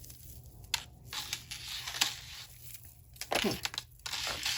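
Irregular crinkling and rustling with a few small sharp clicks as jewelry pieces are handled and moved about.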